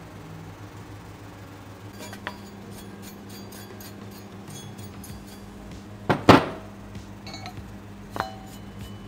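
A stiff hand brush scrubbing moulding sand off a freshly cast aluminium part, a scratchy rasping. The casting clanks sharply against metal twice about six seconds in and once more just after eight seconds, with a brief metallic ring.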